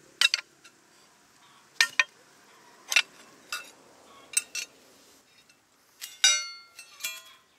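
Rusty leaf-spring steel struck with a small metal tool while resting on an axe head: about nine sharp metal clinks at irregular intervals, the loudest, about six seconds in, ringing on briefly.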